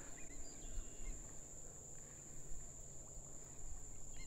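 Faint coastal marsh ambience: a steady, high-pitched insect buzz with a few short, faint bird chirps over a low rumble.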